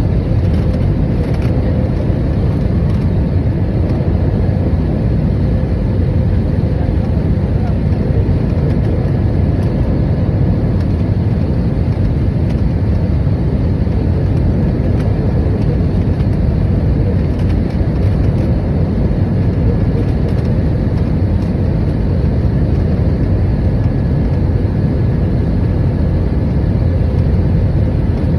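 Steady roar of an airliner's engines and rushing air heard inside the passenger cabin in flight, deep and unbroken, with a faint steady hum.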